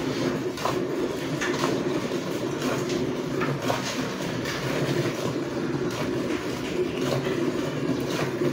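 Milk squirting from a cow's teats into a bucket of frothy milk during hand milking, heard as short irregular spurts over a steady low rumbling noise.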